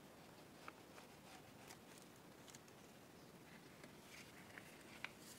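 Near silence, with a few faint light ticks as a squeeze glue bottle's nozzle is worked along a paper bag.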